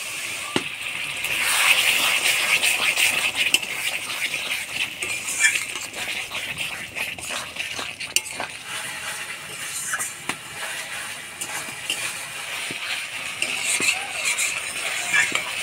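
Onion-tomato spice paste sizzling in a metal kadai with a little water, being stirred and scraped with a spatula, with frequent clicks of the spatula on the pan. This is the masala being fried down (kosha) until it cooks through.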